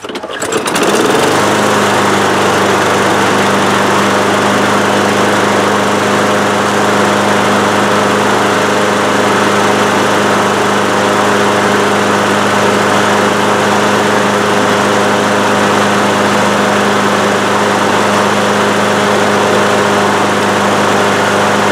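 Craftsman walk-behind mower's Briggs & Stratton engine pull-started, catching on the first pull and coming up to speed about a second in, then running steadily at one even speed. It starts on one pull and runs smoothly now that the carburetor jet, clogged with old fuel, has been cleaned.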